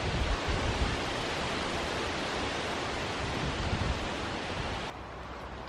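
Wind buffeting the microphone: a steady rushing hiss with low rumbling gusts, which drops away suddenly near the end.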